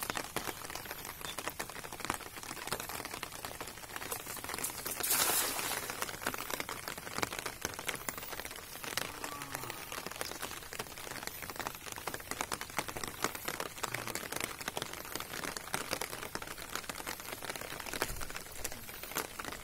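Steady rain falling, a dense patter of drops on the pond water and the ground. About five seconds in there is one louder rush of noise lasting about a second.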